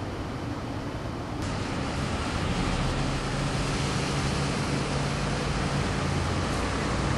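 Steady outdoor background rumble and hiss, like idling vehicles or traffic. It steps up a little about a second and a half in, where a low steady hum joins.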